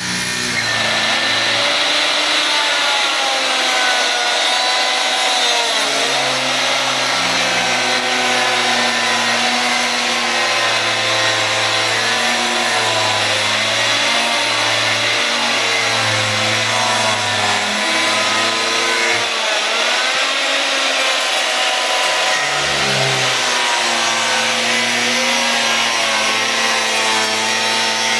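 A power tool working wood, running loud and continuously, its pitch wavering up and down as the load changes.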